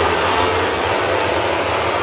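A pack of MotoGP racing motorcycles passing through a corner, many engines at high revs running together as one loud, steady sound.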